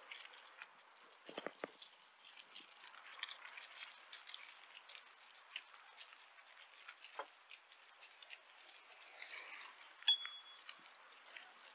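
Bicycle riding along a park pathway: small irregular clicks, rattles and ticks from the bike and tyres over a light hiss, with a short high tone about ten seconds in.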